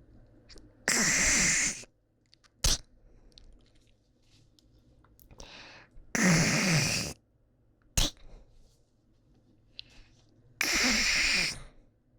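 A person hawking harshly from the back of the throat, a rasping 'khaak' as if bringing up phlegm, three times about four and a half seconds apart. Each of the first two hawks is followed about a second later by a short, sharp spit ('ptoo').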